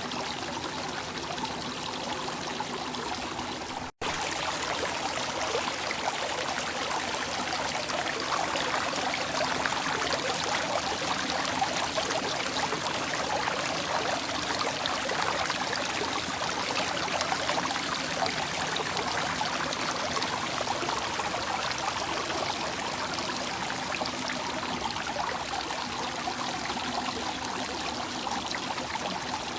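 Flowing water running steadily, a continuous rushing and trickling. About four seconds in it cuts out for an instant, then comes back a little louder.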